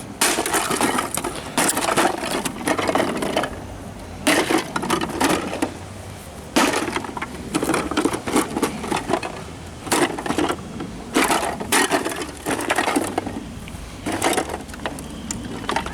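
Repeated crashing and cracking blows as discarded electronics are smashed apart. The blows come in clusters of quick hits, with short pauses between the clusters.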